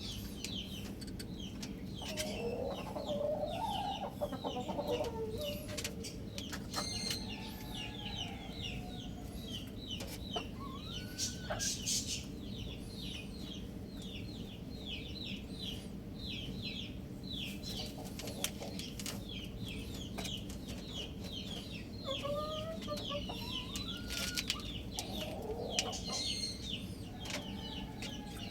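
Chickens clucking, over a constant rapid run of high, short peeping calls, with a few brief rising calls.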